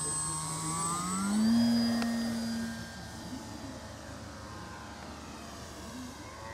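Radio-controlled Pitts biplane model's motor and propeller droning in flight. The pitch rises about a second in as the throttle opens and the plane pulls up, is loudest for a moment, then fades as it climbs away.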